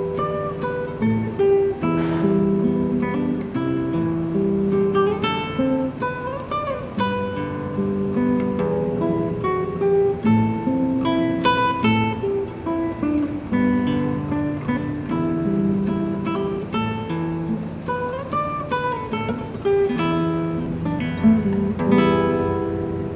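Acoustic guitar played fingerstyle: a plucked melody carried over bass notes, with a few notes sliding or wavering in pitch.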